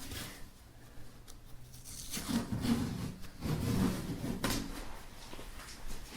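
Rustling and handling noises as a large PC tower case is lifted and moved in its soft bag, with a few knocks and bumps against the case, the busiest stretch in the middle and one sharper knock past the middle.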